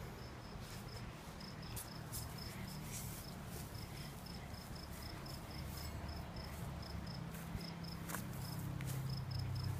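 Faint, high-pitched insect chirping: a steady train of short chirps, about four a second with a few brief pauses. A low rumble and a few faint ticks lie underneath.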